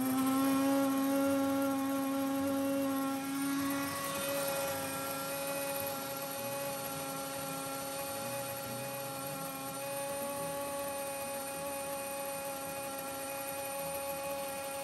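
WonderMill electric grain mill running at full speed, grinding soft wheat berries into flour: a steady high-pitched motor whine, just coming up to speed at the start, its tone changing slightly about four seconds in.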